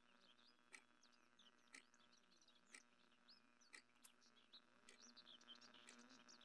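Very quiet room tone with faint bird chirps and a soft tick about once a second, over a low steady hum.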